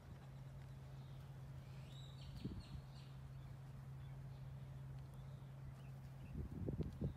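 Faint outdoor ambience with a steady low hum. A bird chirps a few times about two seconds in, and there are a few soft low thumps near the end.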